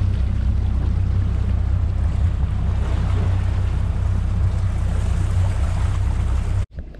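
Diesel sterndrive engine of a Marex 310 motor boat running under way at low speed: a steady low rumble mixed with water and wind noise on the microphone. It cuts off abruptly near the end.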